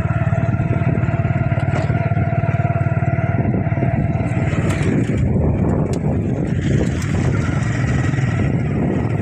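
Motorcycle engine running steadily under way, a low rumble with a faint steady whine that fades about halfway through.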